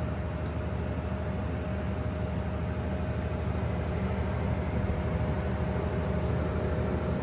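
Steady whir of an air fryer and a solar generator's cooling fans running off its 1000-watt inverter, with one constant steady tone over the whir.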